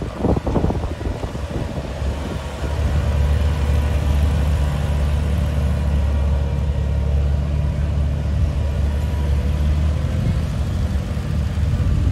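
Vintage farm tractor engine running slowly under light load in a slow race, a steady low drone that grows louder about three seconds in.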